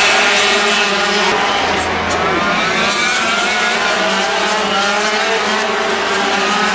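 A pack of 250cc two-stroke Grand Prix racing motorcycles running at high revs as they pass on the circuit. Several engine notes overlap, their pitch rising and falling as the bikes go by and shift gear.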